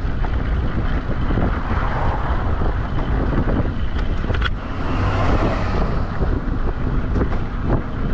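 Wind rushing over the microphone of a moving e-bike, with a steady low rumble from riding. A brighter hiss swells briefly about five seconds in.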